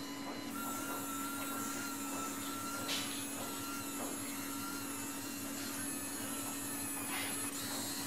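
Dot actuator motor of a homemade Braille embosser running with a steady whir and faint ticks as it works an embossing pin for a Braille dot. A thin higher whine comes in about half a second in and stops about four seconds in.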